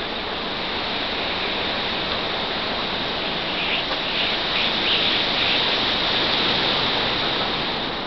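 Rushing whoosh of thousands of European starlings' wings as a murmuration sweeps overhead, a steady water-like hiss that swells about halfway through.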